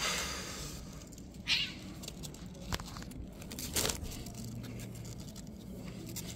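Newborn kittens giving a few short, high-pitched mews, with brief rustling from a hand handling them on cardboard.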